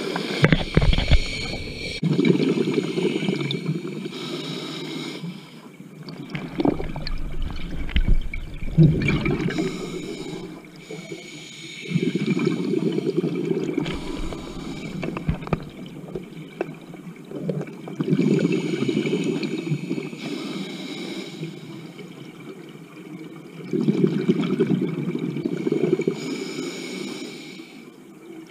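Scuba diver breathing through a regulator underwater: a rush of exhaled bubbles about every six seconds, with quieter inhales between. A few low knocks and bumps come in the first nine seconds.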